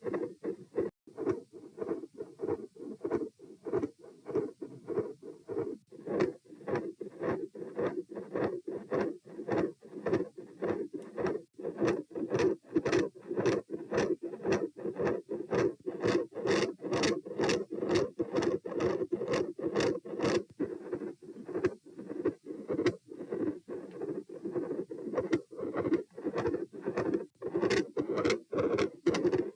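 Heart sounds picked up by a microphone on the chest: a regular train of short beats, about two to three a second, over a continuous noise underneath.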